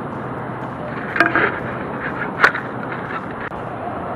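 Beaver-tail roof tile being slid into place over the neighbouring tiles and a steel bracket: scraping with two sharp clicks, about a second in and about halfway through, over a steady hiss.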